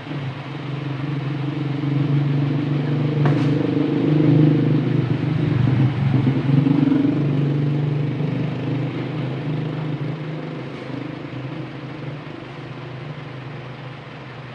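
An engine running steadily, growing louder to a peak about halfway through and then slowly fading.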